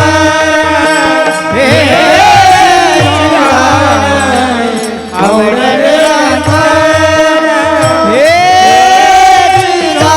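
Marathi kirtan devotional singing: a voice holding long, drawn-out notes that glide up and down, over a steady sustained accompaniment and a hand drum keeping a regular beat. About eight seconds in the voice swoops up into a long high note.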